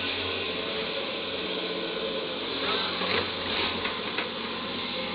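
Caterpillar 320D excavator's diesel engine running steadily, with several short scrapes and clanks in the second half as its bucket digs into loose coal.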